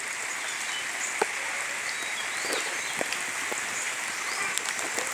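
Steady rain falling, an even hiss with a few sharper drop hits scattered through it.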